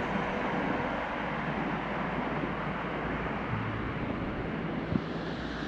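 Steady rushing of water from the waterfall and its stream, with a light tap about five seconds in.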